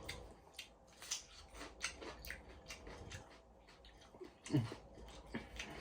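Crunchy shrimp being bitten and chewed, shells and all: irregular crisp crackles and crunches, with a brief hum from the eater about four and a half seconds in.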